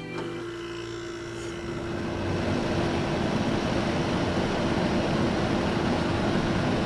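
A steady rushing noise with a constant hum, starting right after a click and swelling over the first two seconds, then holding even.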